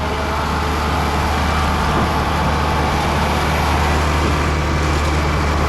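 Heavy diesel engine of the concrete pumping plant running at a steady speed while concrete is pumped through the line.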